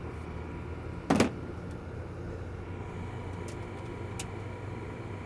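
Steady low hum of running rooftop HVAC machinery, broken about a second in by one brief loud noise, with a few light clicks later.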